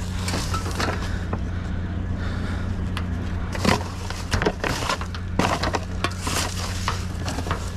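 Junk being rummaged through in a dumpster: hard objects clattering, clinking and knocking against one another in an irregular run of knocks, with a steady low hum underneath.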